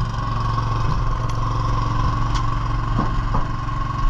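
Boat engine running steadily with a constant low hum, with a few faint clicks over it.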